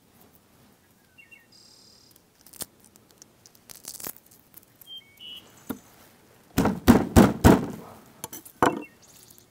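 A few knocks in quick succession about two-thirds of the way through, then one more, among scattered light clicks and a couple of short high chirps.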